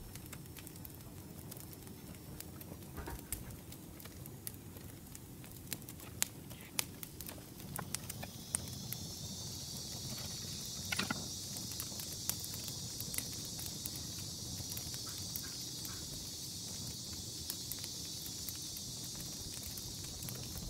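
Close-up food-prep handling sounds on a wooden cutting board: lemon slices being pressed into slits cut in a whole red sea bream and a knife cutting through a lemon, heard as scattered small clicks and taps. From about eight seconds in, a steady high hiss joins underneath.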